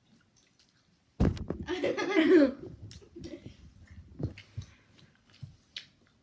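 Boys chewing gummy candies with their mouths full. About a second in comes a sudden loud, wavering vocal sound from a full mouth, lasting just over a second. After it come softer, scattered chewing and lip-smacking noises.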